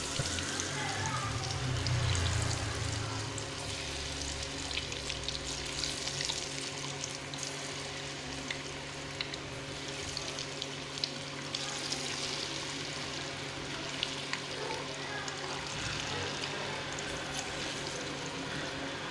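Gram-flour-battered potato slices deep-frying in hot oil: a steady sizzle peppered with small crackles.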